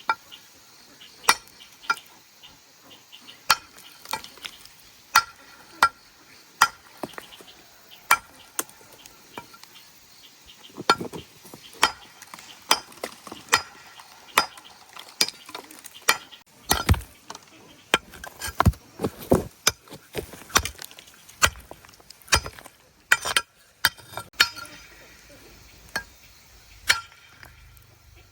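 Repeated sharp chopping strikes of a blade, roughly one or two a second and coming faster past the middle, each with a brief metallic ring.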